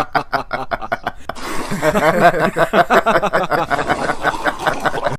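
A person laughing, chuckling in quick rhythmic pulses, turning breathier about a second and a half in.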